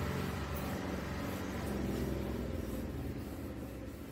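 Chalk tapping and scratching faintly on a blackboard as numbers are written, over a steady low background rumble that fades slightly toward the end.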